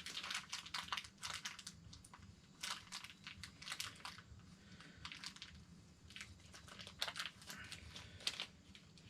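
Crinkling of a small black foil blind bag being handled and opened to get a pin out, in three short bouts of faint rustling.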